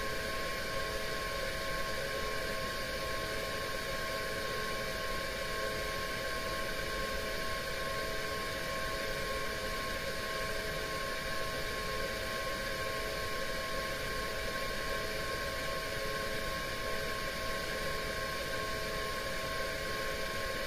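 Steady machine hum and hiss with several constant tones, unchanging throughout, heard from a camera underwater inside an aquarium tank.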